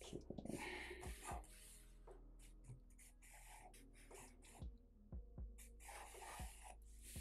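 Black marker scratching on paper in quick, short strokes, with a few soft knocks as the tip and hand come down on the sheet.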